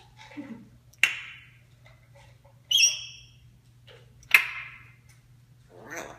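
African grey parrot calling in short separate bursts: a sharp squawk about a second in, a short whistled beep near three seconds, another sharp squawk just past four seconds and a softer call near the end.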